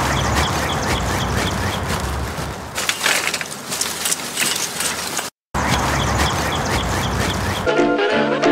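A dog giving a run of short repeated calls over a steady rushing noise, louder and harsher for a couple of seconds from about three seconds in; the same stretch starts over after a brief dropout about five seconds in.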